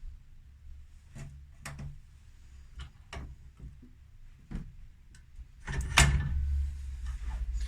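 Scattered clicks and knocks of a small metal part and tools being handled, with a louder clatter about six seconds in.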